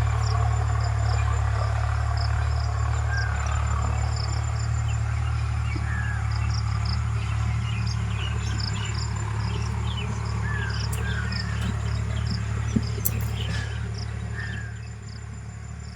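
Insects, cricket-like, chirping in rapid, evenly repeated pulses, with a few short rising bird chirps, over a steady low rumble that eases off near the end.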